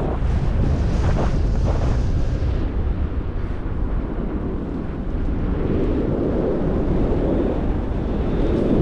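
Wind rushing over the camera microphone from the airflow of a paragliding flight: a loud, steady rushing that swells and eases.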